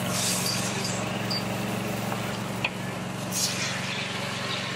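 Steady low mechanical hum from a running motor, under an even hiss, with a couple of faint light ticks.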